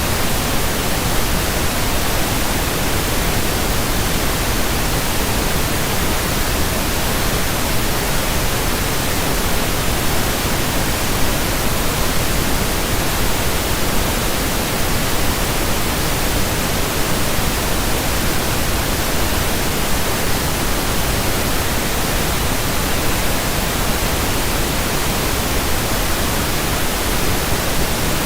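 Steady pink noise: an even, unchanging hiss spread across all pitches, played as a sleep sound.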